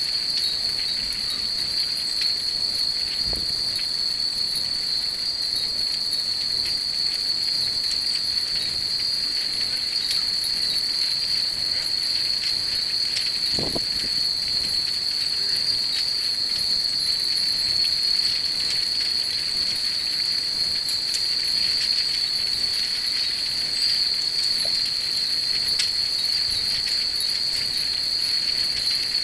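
Hundreds of Japanese furin wind chimes tinkling together in a light, scattered jingle, over a steady high-pitched drone.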